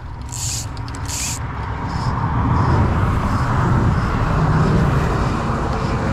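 Highway traffic passing at speed: a rush of tyre and engine noise with a low rumble that builds over the first few seconds and then stays loud. Two short hisses come in the first second and a half.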